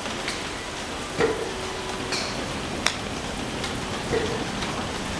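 A steady hiss with several sharp clicks and knocks scattered through it, a few of them ringing briefly.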